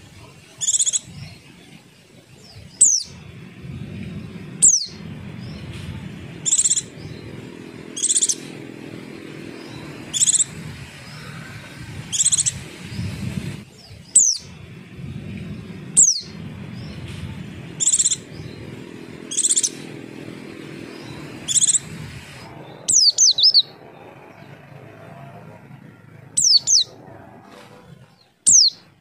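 A white-eye (pleci) calling: short high chirps alternating with quick falling whistles, repeated about every two seconds, with a quick run of several falling notes about two-thirds of the way through. A steady low rumble runs underneath.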